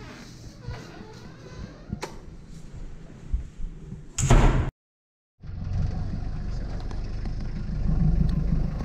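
Handheld camera noise with a sharp click about two seconds in and a loud, short burst of noise about four seconds in. After a brief gap of dead silence, a vehicle engine runs with a steady low drone.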